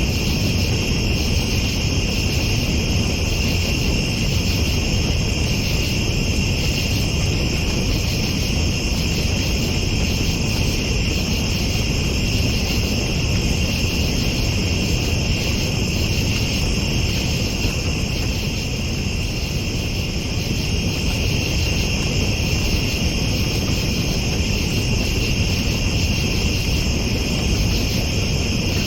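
Night insects chirring steadily in a high, constant drone, over a continuous low rumble.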